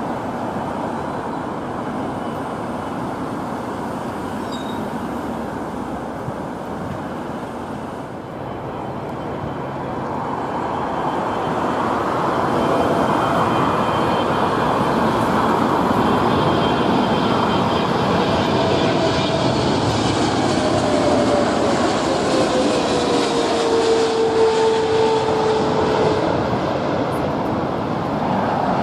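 Jet airliner engines roaring on landing: a touching-down airliner's roar eases off, then a Boeing 777-300ER's GE90 turbofans build up loud as it comes in low and close over the runway, with an engine whine that falls steadily in pitch as it passes.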